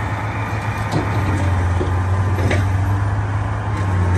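Caterpillar 775E haul truck's diesel engine running with a steady low drone as the loaded truck drives off, with a couple of faint knocks about one and two and a half seconds in.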